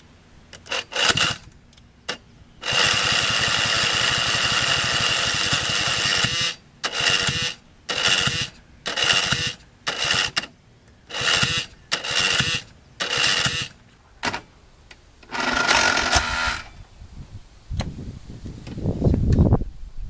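Starter motor of an old Craftsman garden tractor cranking the engine on a jump-start, after it sat about eight years with water in the fuel tank. One long crank of about four seconds, then a run of short cranks about once a second, with a steady whine through each. Near the end a low rumble rises.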